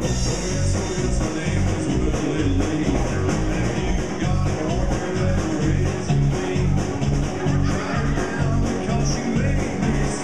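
A live band with electric guitar and drum kit playing an up-tempo blues-rock number, with a steady, driving beat and heavy low end.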